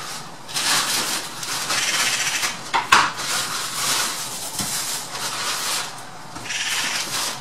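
Eurasian magpie chattering: harsh, rasping rattles in rough surges, the call a magpie gives when mobbing a raptor. A sharp click about three seconds in.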